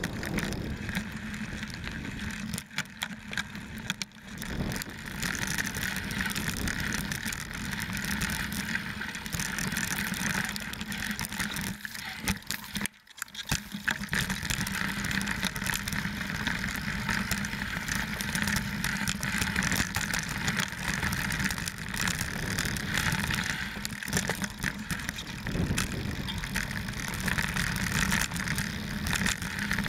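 29er mountain bike rolling over a rocky dirt trail: tyres crunching on dirt and stones, with the bike rattling and knocking over the rocks, heard through a handlebar-mounted GoPro. The noise briefly drops away about thirteen seconds in.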